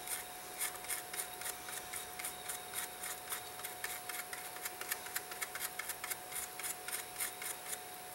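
Fiberglass scratch brush scrubbing surface rust off the plate of a ladies' Benrus CA1 watch movement, in quick, short scratchy strokes, several a second.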